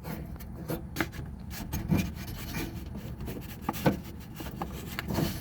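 Irregular rubbing and scraping with scattered small clicks, from hands working at the plastic retaining clip of a truck's inside door latch cable.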